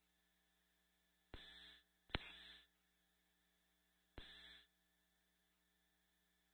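Near silence on a radio scanner feed: a faint steady electrical hum, broken by three short clicks, each followed by a brief burst of static, about one and a half, two and four seconds in, the middle one loudest.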